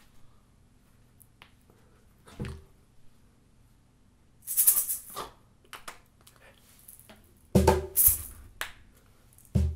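Short bursts of rattling shakes and a few knocks, with quiet gaps between them; the loudest bursts come about halfway through and near the end.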